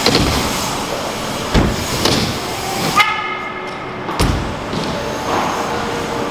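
BMX bike riding wooden skatepark ramps: tyres rolling with a steady rumble, and several sharp thumps of wheels hitting and landing on the ramps. About three seconds in the rolling noise gives way to a steady pitched buzz while the bike is in the air, cut off by a thump on landing a second later.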